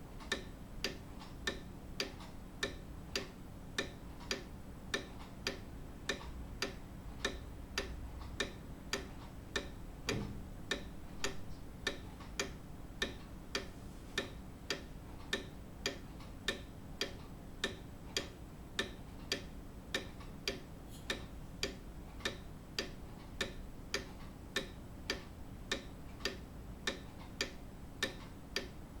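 Grandfather clock ticking steadily, with sharp, evenly spaced tick-tock beats of its escapement. A soft low thud about ten seconds in.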